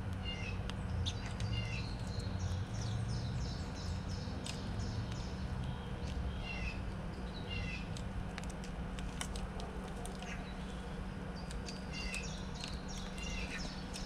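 Backyard songbirds calling: a few repeated short swooping calls and quick runs of high chirps, over a steady low hum.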